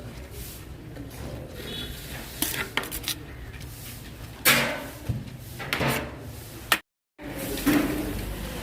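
Metal cooking utensils and pots clanking and scraping, several separate knocks over a low background. The sound cuts out completely for a moment about seven seconds in.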